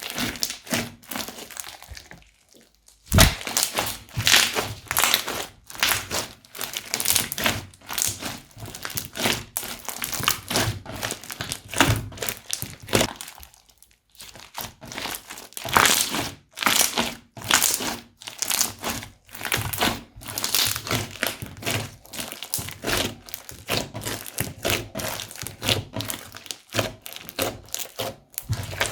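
Crunchy slime being squeezed and pressed by hand, giving dense runs of crackling, popping crunches. There is a short pause about two seconds in, then a sharp thunk, and another brief lull around fourteen seconds.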